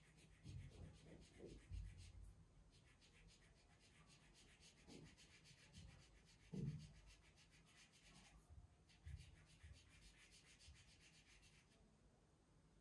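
Faint scratchy rubbing of a marker drawing lines on a wall, in stretches of strokes with short pauses, stopping about a second before the end. A few soft low thumps come in between, the loudest about six and a half seconds in.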